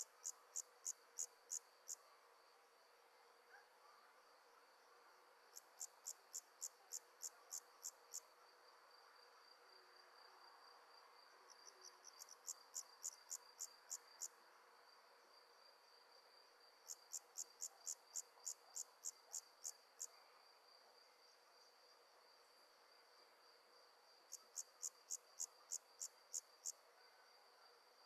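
Night insects calling: a steady high-pitched trill, with a burst of about ten loud, evenly spaced chirps, about four a second, repeating every five or six seconds.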